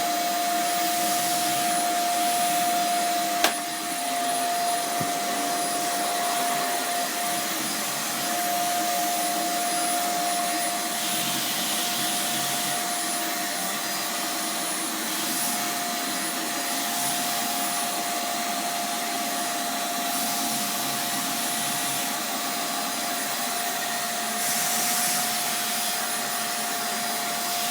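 Vacuum cleaner running steadily: an even rushing hiss with a constant whine. The hiss brightens briefly every few seconds, and there is one sharp click about three and a half seconds in.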